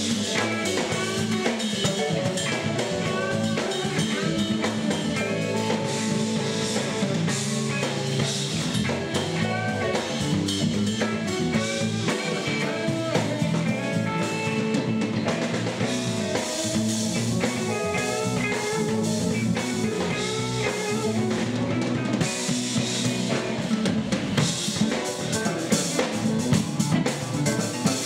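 Live band playing instrumental rock: a drum kit keeps a steady beat under electric bass and electric guitar, with a melodic lead line of single notes on top.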